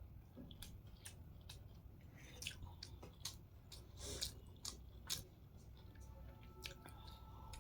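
A person chewing a mouthful of hakka noodles, with irregular wet mouth clicks and smacks.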